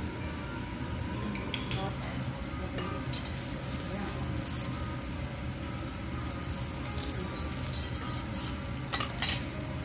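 Wagyu beef sizzling on a steel teppanyaki griddle over a steady low hum. A knife and spatula tap and scrape against the steel plate as the meat is cut, with a few sharp metal clicks, the loudest pair near the end.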